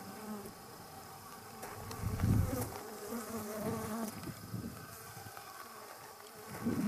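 Flies buzzing, a wavering drone that swells about two seconds in and again near the end.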